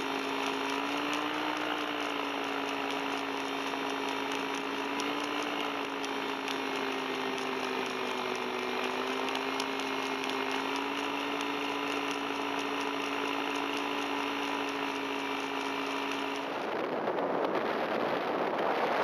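Tandem paramotor's engine and propeller running steadily in flight, a drone that wavers slightly in pitch. About sixteen and a half seconds in it gives way abruptly to wind rushing over the microphone.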